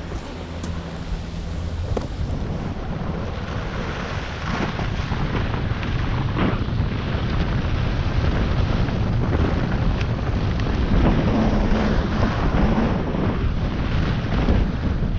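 Wind buffeting the microphone, a heavy rough rumble at the low end that swells slightly louder after about six seconds.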